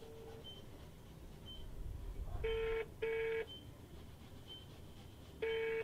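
Mobile phone ringing tone: two double rings about three seconds apart, each a pair of short low tones.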